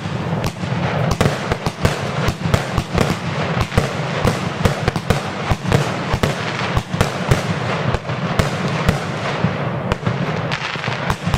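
Magnum Triple X compound firework cake firing a fast, unbroken series of aerial shots: sharp bangs with crackling, several a second.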